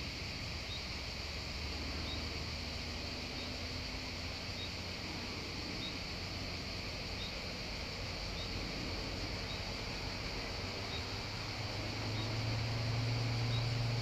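Steady high buzzing of summer insects, with a short high chirp repeating a little faster than once a second. A low motor hum grows louder near the end.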